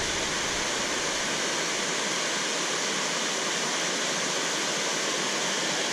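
Steady rush of river water pouring through a weir, running high after flooding.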